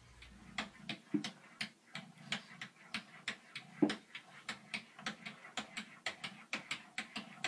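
A cat's paws tapping and patting against a bathroom mirror: a rapid run of light clicks, about four or five a second, with a couple of duller, louder knocks.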